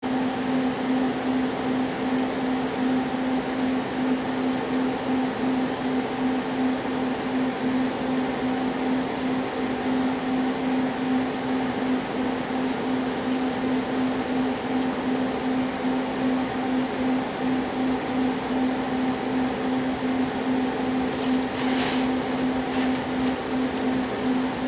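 Steady machine hum inside a passenger train coach: a constant low tone with a fainter higher tone over an even rushing noise. A few sharp clicks come near the end.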